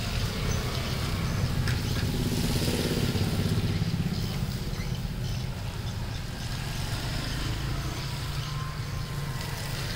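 Steady low drone of a running motor, with a slight swell about three seconds in.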